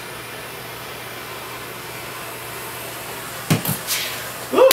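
Steady hiss of a handheld blowtorch lighting banger fuses, then a short knock about three and a half seconds in.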